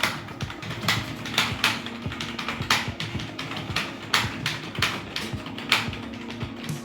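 Computer keyboard being typed on during a typing test: quick, uneven key clicks, a few a second.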